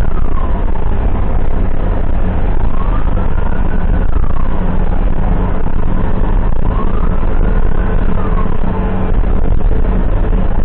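Ambulance siren on a slow wail, rising and falling about once every four seconds, over the loud steady rumble of the vehicle's engine and road noise.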